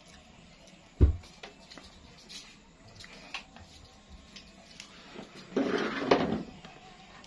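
A person eating with the hand: fingers picking at rice and noodles on a plate with small clicks, a single low thump about a second in, then about a second of loud mouth noise as a handful is taken into the mouth.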